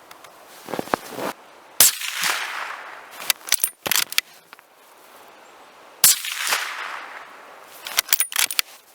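Two suppressed rifle shots about four seconds apart, each a sharp report with a short decaying tail, and each followed by a quick run of sharp clicks.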